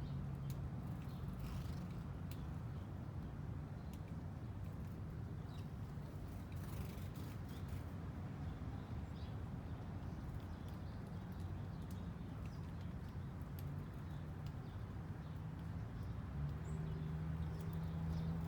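Outdoor ambience dominated by a steady low hum and rumble, with a few faint, short high chirps, likely small birds, scattered through it.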